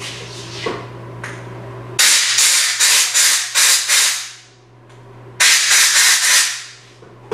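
Two blasts of compressed air, each a loud hiss that pulses in several surges as the trigger is worked, blowing brake cleaner off a nitro model engine. The first starts about two seconds in and the second, shorter one follows about a second after it.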